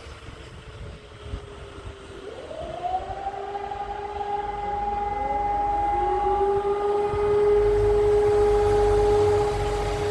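Mechanical civil-defence siren sounding the fire-brigade alarm to call out the volunteer firefighters: about two seconds in it winds up with a rising pitch and settles into a steady wail, and further rising tones join a few seconds later, growing louder.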